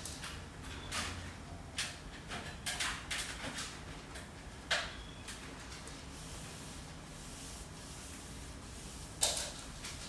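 Short scrapes and knocks as an aluminium stepladder is climbed, then a cloth rubbing along ceiling-fan blades, with one louder scrape near the end.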